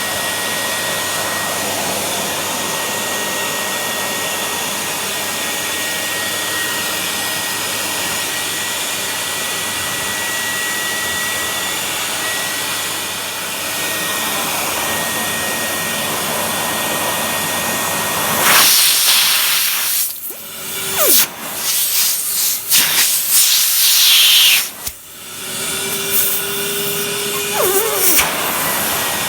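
1974 Miele S 200 de luxe vacuum cleaner running with a steady rush of air; this model has no factory sound insulation. In the last third the sound breaks up into irregular loud surges and sudden dips, as the airflow through the nozzle changes.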